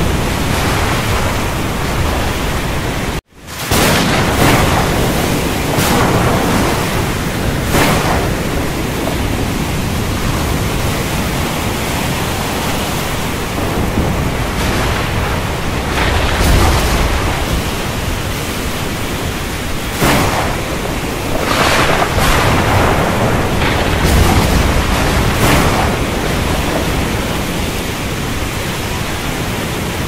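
Heavy rain falling in a dense, steady rush, with occasional deep rumbles of thunder. The sound cuts out for a split second a little over three seconds in and swells back.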